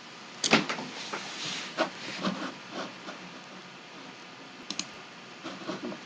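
Irregular clicking and tapping on a computer keyboard over a steady hiss: a run of clicks from about half a second in to around three seconds, a pause, then a few more near the end.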